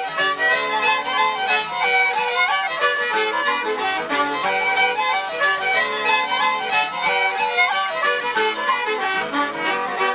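Irish traditional band playing a fast tune, a fiddle carrying the melody in quick running notes over a steady rhythmic accompaniment.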